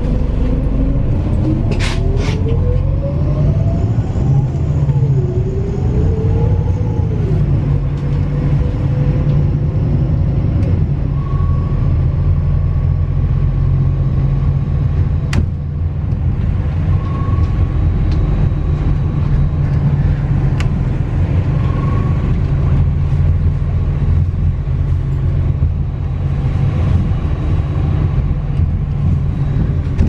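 Heard from inside the cabin, a MAZ-206.945 city bus pulls away and runs along: a steady low rumble with a whine that rises as it accelerates. The whine drops abruptly about five seconds in at a gear change, climbs again, then holds steady while cruising. A few short clicks or rattles sound over it.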